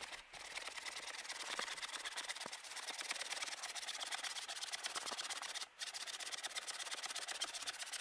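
Small hand saw cutting through a dead fallen branch in quick, steady back-and-forth strokes, the teeth rasping on the wood, with a brief pause about two-thirds of the way through.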